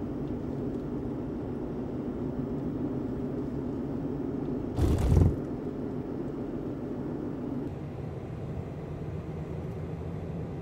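Steady road and engine drone inside a moving car's cabin, with a brief loud burst of noise about halfway through. A hum in the drone drops away about three quarters of the way through.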